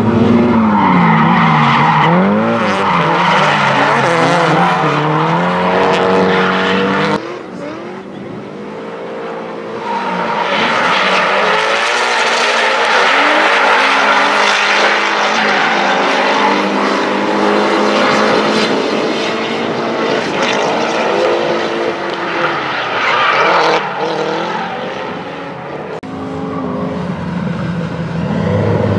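Drift cars' engines revving up and down hard while their tyres squeal and skid as they slide through the corners, in several passes with abrupt changes in level about seven seconds in and again near the end.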